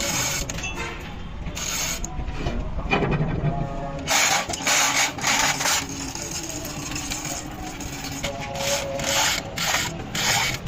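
Metal scraping and clanking as a heavy truck's steel axle housing, hung on a chain, is shifted into place on a steel press bed, in two bouts of sharp strokes, one about four seconds in and one near the end.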